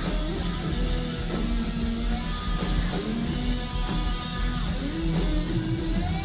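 Hard rock band playing live, recorded from the crowd at an open-air show: electric guitar over drums and bass, with sustained melodic notes.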